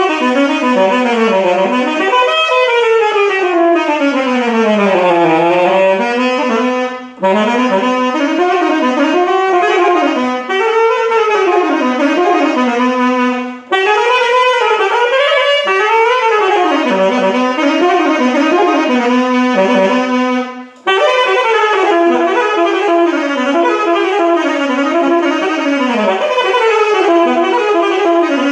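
Karl Glaser alto saxophone in E-flat, brand new and played for the first time without adjustment, playing a flowing melody in four phrases with short pauses for breath. The first phrase runs down to the low notes and climbs back up.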